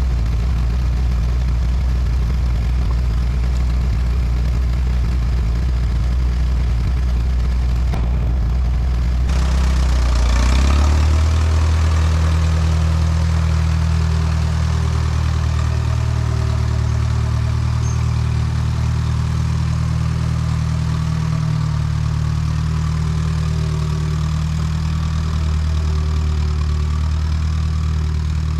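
Allis-Chalmers WD tractor's four-cylinder engine running steadily at idle. About ten seconds in its pitch steps up, and it then holds steady at the higher pitch.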